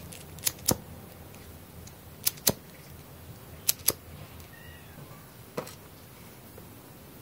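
Disposable flint lighter being flicked: three strikes, each a pair of sharp clicks about a fifth of a second apart, then a single softer click near the end.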